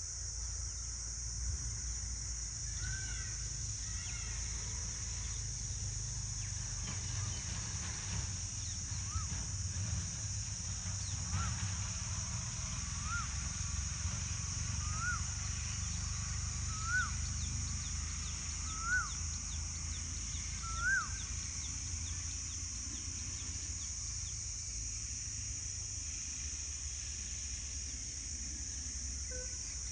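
A peacock calling: a run of about seven short rising-and-falling calls, roughly two seconds apart, growing louder toward the end. Under it runs a steady high hiss and a low rumble.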